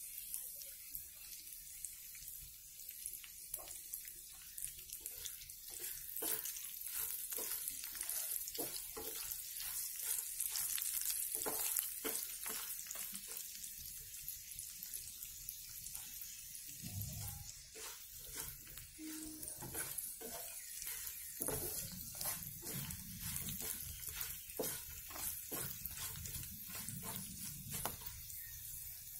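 Whole spices, chana dal, garlic and curry leaves roasting in oil in a black iron kadai on a low flame, sizzling with a steady hiss and many small crackles: the masala has started to crackle as it roasts. A wooden spatula stirs it near the end.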